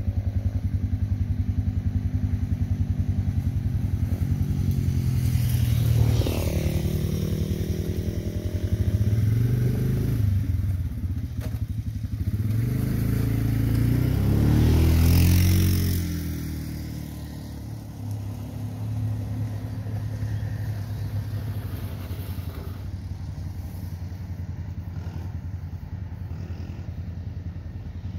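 Off-road vehicle engine running steadily with a fast low pulse. It swells and shifts in pitch about six seconds in and again between about fourteen and sixteen seconds, then runs quieter.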